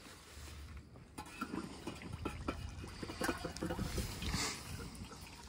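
Red-hot steel knife blade being quenched in a container of oil: the liquid sizzles and bubbles around the blade, with scattered knocks of the blade against the container and a brief hiss about four seconds in.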